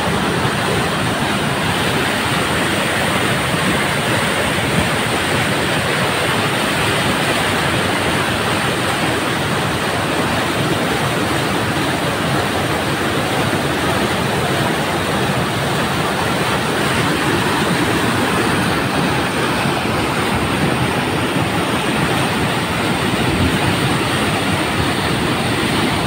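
Floodwater rushing and churning over a lake's overflow spillway close to the microphone: a loud, steady rush of white water.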